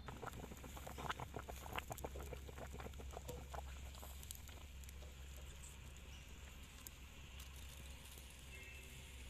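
Faint bubbling of broth boiling in a wide wok, a quick run of small pops and plops for the first three and a half seconds, then quieter. A steady low hum runs underneath.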